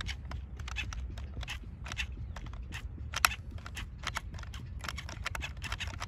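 Irregular clicking and crackling, several sharp ticks a second over a low rumble, from a mud-jammed RC rock crawler as throttle is applied and it fails to drive. Its tyres are clogged with mud and the car won't pick up.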